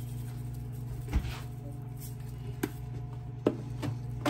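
A few sharp clicks and knocks of a metal spoon against a disposable aluminium foil pan as wet cornmeal dressing is stirred, over a steady low hum.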